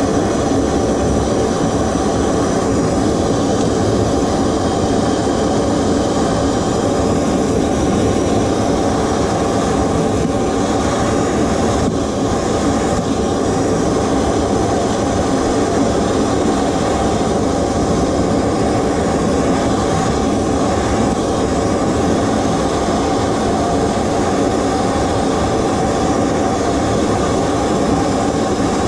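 Handheld gas torch burning with a steady hiss, heating a soldered copper pipe fitting to melt the solder and sweat the fitting off.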